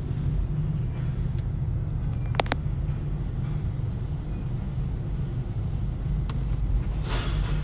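Steady low rumble of a Peco car wash tunnel's equipment, heard from inside the car's cabin. Two sharp ticks come about two and a half seconds in, and a short hiss of spray swells near the end.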